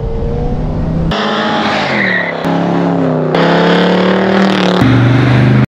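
Classic American muscle-car engines running and revving as the cars drive by, the sound jumping abruptly from one car to the next four times. A short high squeal about two seconds in.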